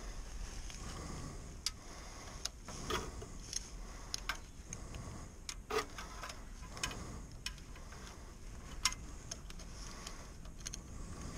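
Irregular light clicks and knocks of hand tools and metal parts being handled under a car, about one every second.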